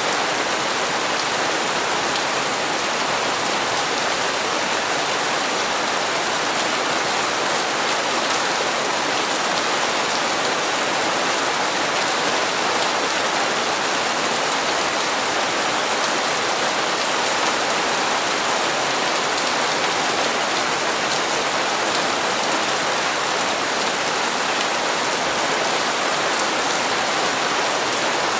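Steady rain falling and pattering on hard surfaces, an even hiss with no breaks.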